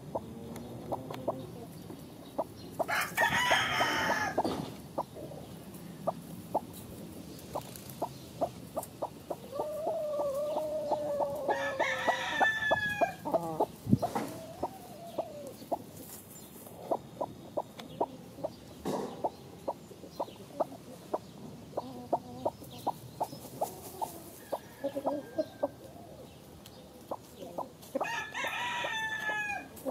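Chickens clucking in short, frequent notes throughout, with a rooster crowing three times: a few seconds in, near the middle, and near the end.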